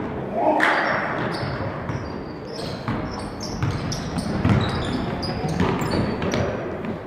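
Basketballs bouncing on a hardwood gym floor in irregular thuds, with short high squeaks and voices echoing in the hall.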